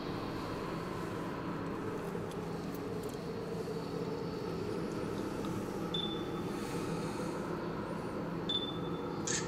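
Steady low background hum. Two short high chirps come about six seconds in and again near the end, and a sharp click follows just before the end.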